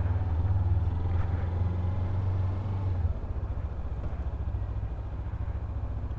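Sport motorcycle's engine running at low speed, a steady low drone that drops to a quieter, fast even pulse about three seconds in.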